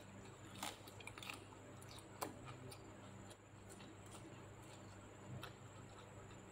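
Faint chewing of a raw pok choy leaf and stir-fried food, with scattered wet mouth clicks and smacks, the sharpest about two seconds in.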